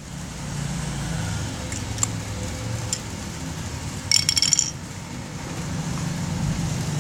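A low steady hum, like a running engine, with a few light clicks and a brief rattle of clinking about four seconds in.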